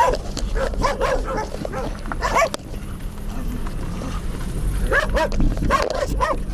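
A dog barking in bursts: a few barks at the start, a loud pair about two seconds in, and a cluster around five to six seconds.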